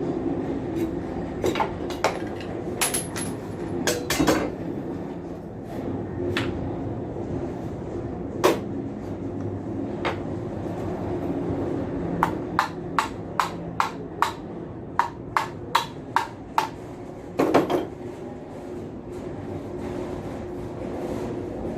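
Sharp knocks and taps of tools on submersible pump parts during disassembly. There are scattered single strikes in the first half, then past the middle a run of about a dozen quick strikes at roughly two a second, and a heavier double knock after them. A steady low hum continues underneath.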